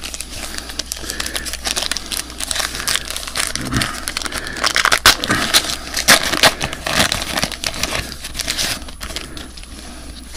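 Crinkling and tearing of a trading card pack's wrapper as it is opened by hand, a dense crackle that is busiest and loudest in the middle of the stretch and eases off near the end.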